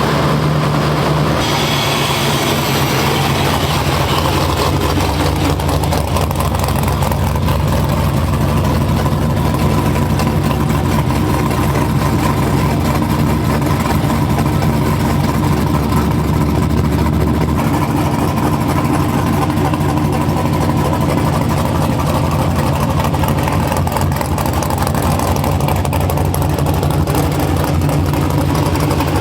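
LS V8 engine running at a steady idle on a cold start under Holley Terminator X fuel injection, whose cold-start tune is being sorted out; the engine tends to die right after firing, but here it keeps running. The idle shifts slightly about a second in and again near the middle.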